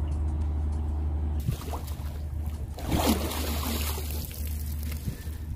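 Water splashing and trickling at the lake edge, loudest for a couple of seconds in the middle, over a steady low rumble.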